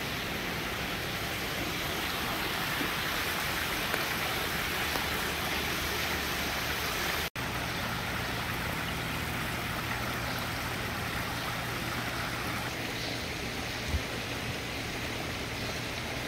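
Water from a garden pond waterfall and stream running and splashing steadily over rocks. The sound drops out for an instant about seven seconds in, then carries on with a low steady hum under it.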